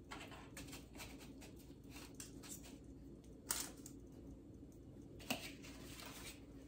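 Faint scraping and clicking of a fork and knife against a plate and foil pan while a baked chicken wing is cut and lifted, with two sharper clicks, about three and a half and five seconds in.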